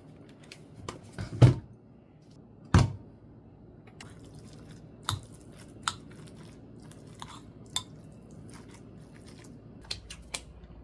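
Scattered light clicks and taps with two louder knocks in the first three seconds, like small objects being handled up close.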